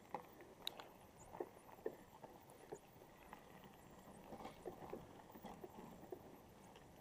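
Near silence with faint, irregular ticks and knocks from a mountain bike rolling down a rough, uncleared track.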